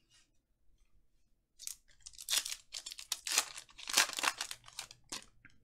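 Foil wrapper of a Panini Mosaic football card pack being torn open and crinkled by hand: a run of quick tearing and crinkling rustles starting about a second and a half in and stopping just before the end.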